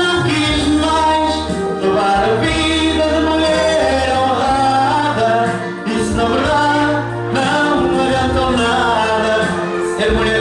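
A song: a voice singing a melody over accompaniment with sustained bass notes that change every couple of seconds.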